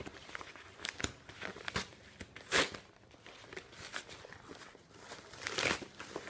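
Package being handled and opened: crinkling and tearing of packaging, with scattered small clicks and a short loud rasp about two and a half seconds in, another near the end.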